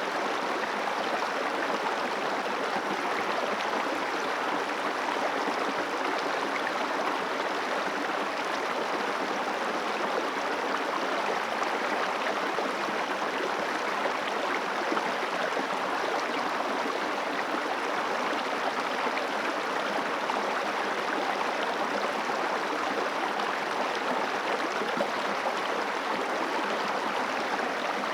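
Water of the upper Guadalquivir river flowing and rushing steadily, an even, unbroken wash of water noise.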